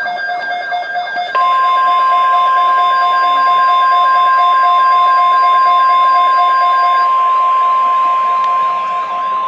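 A rapid pulsing electronic alert alarm sounds. About a second in, the NOAA Weather Radio warning alarm tone, a single steady 1050 Hz tone, joins it loudly and signals an incoming alert message. The pulsing alarm stops about seven seconds in, and the steady tone holds on.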